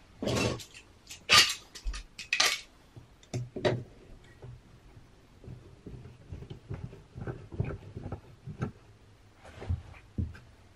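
Knocks, clicks and scrapes of screw clamps and wood being handled while a glued, stacked-ring wooden subwoofer cabinet is clamped up. The three loudest knocks come within the first two and a half seconds, followed by many lighter ticks.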